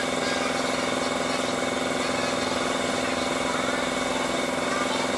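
Car engine idling steadily, an even hum with no change in pitch or level.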